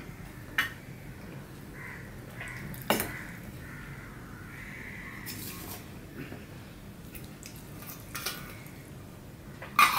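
Stainless steel bowl and plate clinking as rice is tipped onto the plate and mixed by hand, with two sharp clinks early on and a louder clatter near the end.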